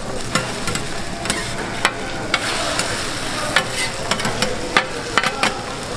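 Eggs with shredded vegetables sizzling on a flat-top griddle, with sharp, irregular clicks and scrapes of a metal spatula against the griddle plate as the egg patties are lifted and flipped.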